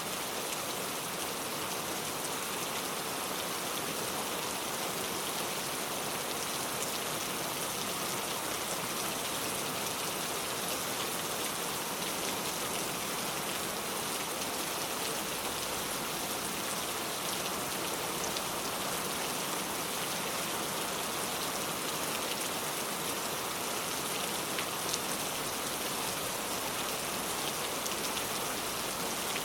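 Steady rain falling on a surface, an even hiss with faint individual drop ticks.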